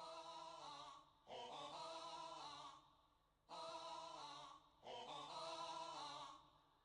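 Quiet opening of a music track: a lone singing voice with no beat, four short held phrases with brief pauses between them.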